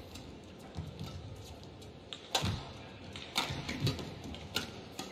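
Badminton rally: sharp racket strikes on the shuttlecock, about one a second from midway on, with thuds of footsteps on the court.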